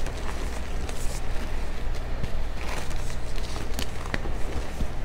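Soft dyed gym chalk being crushed and crumbled by hand, a steady dry crunching and crackling with scattered sharper cracks as pieces break apart and powder falls.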